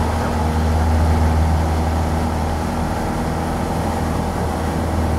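Single-engine light aircraft's piston engine and propeller at takeoff power during the takeoff roll and lift-off, a steady low drone heard inside the cockpit.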